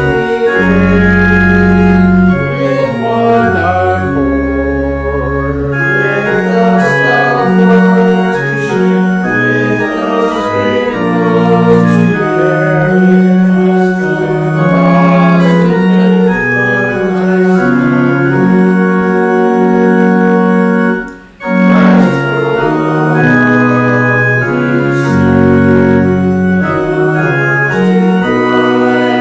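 Organ playing a hymn in full sustained chords that change step by step, with one short break a little over two-thirds of the way through.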